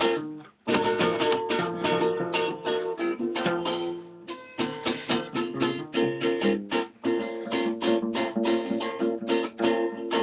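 Violão (acoustic guitar) and acoustic bass guitar playing samba, the guitar strummed in a quick, even rhythm over plucked bass notes, with a brief break about half a second in.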